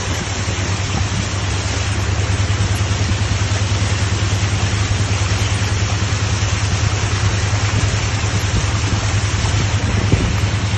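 Floodwater rushing along a street in heavy rain: a steady rushing noise. Under it runs a loud, low hum that pulses rapidly and evenly.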